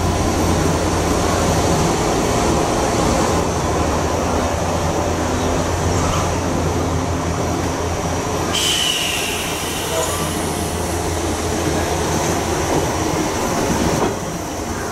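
JR West 105 series DC commuter electric train standing at the platform with a steady hum. About eight and a half seconds in, a sharp hiss sets in, and near the end the train starts to pull away.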